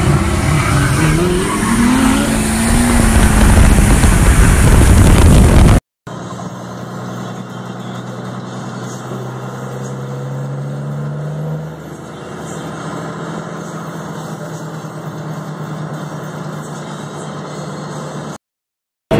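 Diesel pickup engine revved hard to roll coal, loud and rough, its pitch climbing a second or two in. After a break, a diesel engine heard from inside the truck's cab runs steadily, its pitch slowly rising, then drops back about halfway through.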